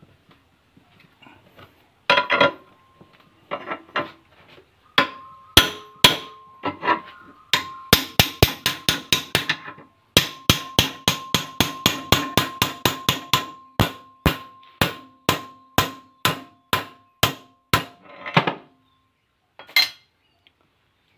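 Steel hammer blows on a Suzuki Carry front control arm held in a bench vise, knocking at the ball joint to dismantle it. A few loose clanks come first, then from about five seconds in a long run of ringing metal strikes, quick at first and slowing to about two a second before stopping near the end.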